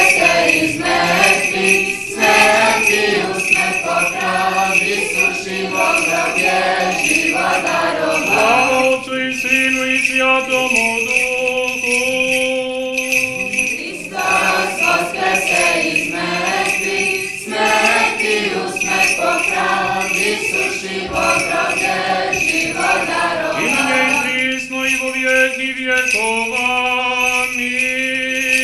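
Church bells ringing in a continuous peal, with choral singing alongside.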